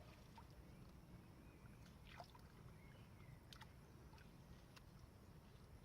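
Near silence: a low steady background rumble with a few faint clicks scattered through it.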